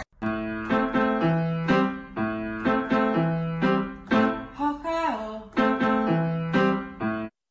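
Background music: a keyboard melody of short, separate notes over a repeating bass note, two to three notes a second, cutting off suddenly near the end.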